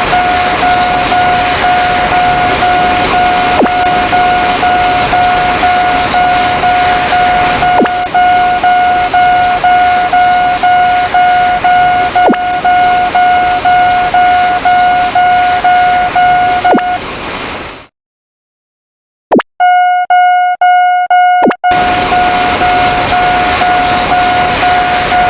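Railroad crossing warning bell ringing in rapid, evenly repeated dings, about two to three a second, over a steady rushing noise. Both cut off suddenly about 17 seconds in. After a second and a half of silence the bell starts again, alone for a moment, before the rushing noise returns.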